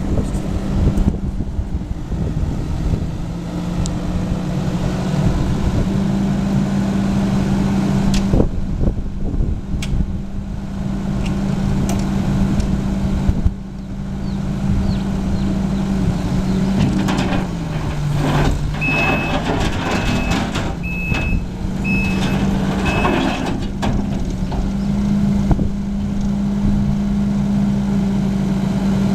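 Kubota SVL74 compact track loader's four-cylinder diesel engine running steadily, its pitch pulling down briefly under load a little past halfway, then recovering. Right after, the backup alarm sounds about five short, evenly spaced beeps as the machine reverses.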